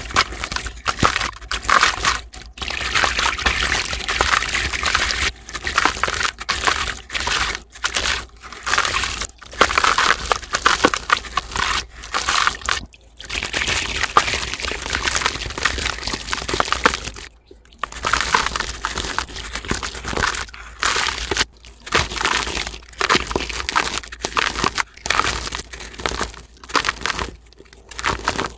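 Gritty, dusty sand-cement being crushed and crumbled by hand, a run of crunching, crackling bursts with brief pauses between them.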